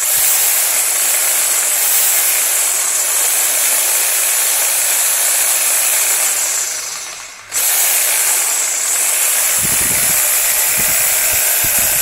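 Makita JR3051TK corded reciprocating saw running with no load, its blade stroking in the air: a loud, steady motor and blade noise. About six and a half seconds in the trigger is let go and the saw winds down, then it is run up again a second later.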